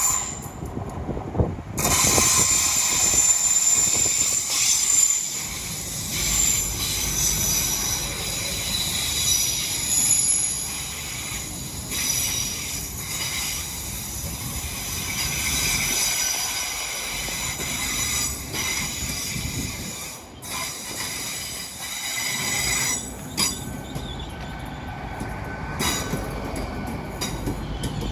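A train moving along the rails with a continuous low rumble and high squealing from its wheels, the squeal strongest in the first ten seconds or so.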